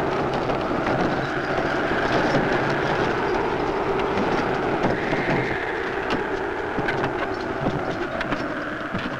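Horse-drawn wooden wagon rolling: a steady rumble of wheels and team with scattered clicks and rattles.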